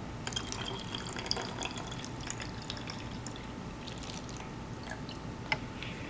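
Water poured from a plastic measuring cup into a small plastic water bottle through its narrow neck, trickling and splashing in, filling it to about three-quarters full. The trickle thins out near the end.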